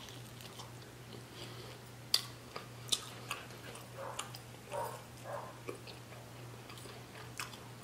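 Close-miked chewing of a mouthful of rotisserie chicken, with wet mouth clicks and smacks scattered through and a few sharper clicks about two and three seconds in, over a steady low hum.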